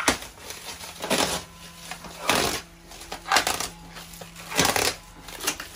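Black plastic stretch wrap being pulled and torn off a wooden slab, crinkling and ripping in bursts about once a second.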